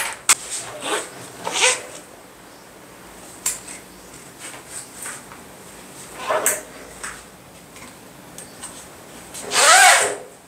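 Hands handling scuba harness parts on a table: scattered clinks, taps and rubbing of metal D-rings and slides, nylon webbing and an aluminium backplate. Near the end there is a brief, louder whine that rises then falls in pitch.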